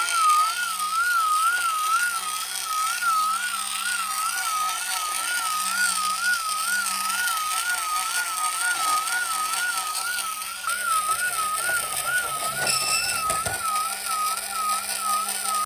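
Toy police car's electronic siren: a single high tone warbling quickly up and down, about twice a second, held steady, with a few brief clicks near the end.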